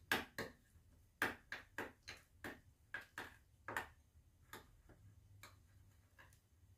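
Spoon clinking against a small bowl while stirring mashed avocado into guacamole: a quick, irregular series of light clinks that thins out toward the end.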